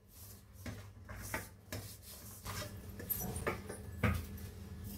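Hands mixing and kneading flour dough in a stainless steel bowl: soft, irregular rubbing and scraping, over a steady low hum.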